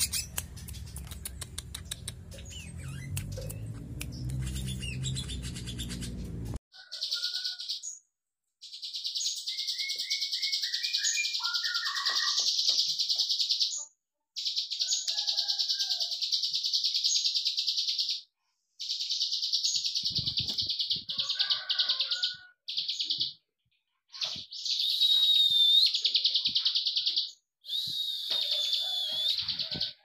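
For about the first six seconds an ashy drongo (sri gunting) calls over a rough, scratchy rubbing noise. Then comes a prinia's (prenjak's) 'klik klik' song: long, high runs of very rapid clicking notes lasting several seconds each, with short breaks and a few lower falling notes between them.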